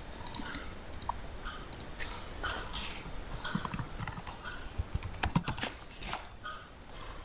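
Computer keyboard typing: a run of quick key clicks, densest about five seconds in, mixed with mouse clicks.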